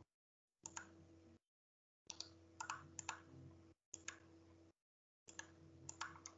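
Faint, scattered clicks of a computer mouse in irregular small groups, over a low steady hum that cuts out to dead silence several times.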